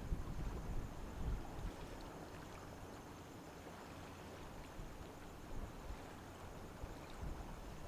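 Quiet harbour ambience at a ship's departure: a steady wash of water noise, with low buffets of wind on the microphone in the first second or so and again about seven seconds in.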